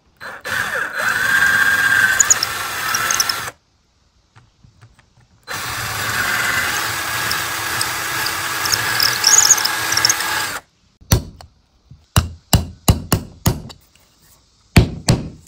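Cordless drill boring holes into a wooden form, in two steady runs of about three and five seconds, its motor whining. Then comes a series of about ten sharp wooden knocks.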